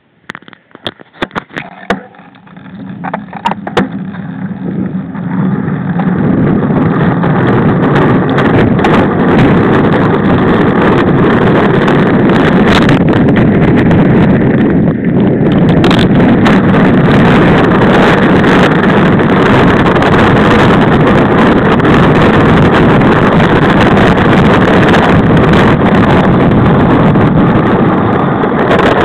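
Wind rushing over the microphone of a camera on a road bike descending a mountain pass at speed: a few knocks and clicks in the first few seconds as the rush builds, then a steady, loud roar of wind.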